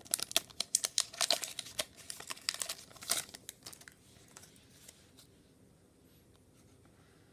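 Trading-card pack wrapper crinkling and tearing as a pack is opened and handled, a dense crackle that fades out a little past halfway.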